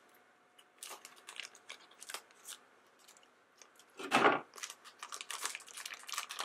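A small plastic blind bag crinkling and rustling as it is snipped with scissors and then pulled open by hand, in short scattered crackles with one louder rustle about four seconds in.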